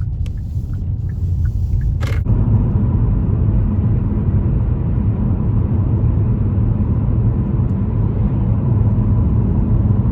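Car in motion: steady low rumble of road and engine noise. About two seconds in it grows louder and fuller, then holds steady.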